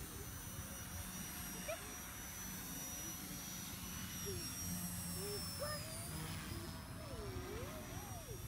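Blade mCP X BL micro RC helicopter's electric motors and rotors whining, a thin high steady whine that dips briefly in pitch about six seconds in, over a low rumble.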